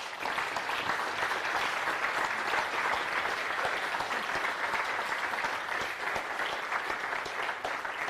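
Audience applauding, a steady mass of many hands clapping that eases off slightly near the end.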